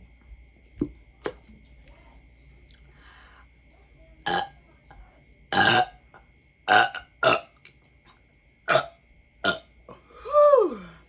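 A woman belching loudly, about seven burps in quick succession starting about four seconds in. The last one is the longest and drops in pitch.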